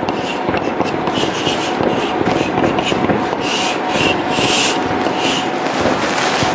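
Chalk scratching on a blackboard as an equation is written and boxed: a run of short scratchy strokes, with a few brighter squeaky strokes a little past the middle. A steady rushing background hiss lies under it.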